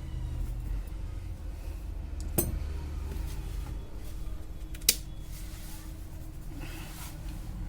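Two sharp clicks of small repair tools on the workbench, about two and a half seconds apart, over a steady low hum.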